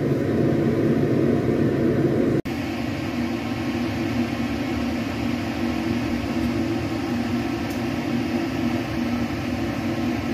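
A steady, fan-like mechanical hum that drops out for an instant about two and a half seconds in, then carries on slightly quieter.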